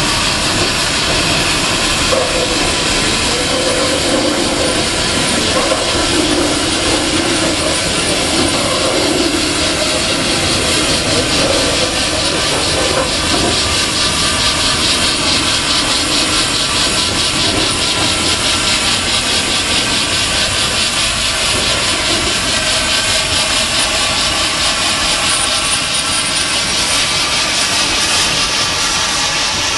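Cog railway steam locomotive working hard as it pushes its coach uphill: a steady, loud rush of steam exhaust with a fast, even beat that grows clearer partway through.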